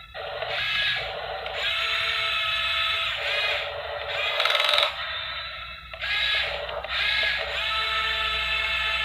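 Small electric gear motors of a Yigong RC toy excavator whining in spurts of one to two seconds with brief pauses, as its boom, arm and tracks move. The loudest spurt comes about four and a half seconds in.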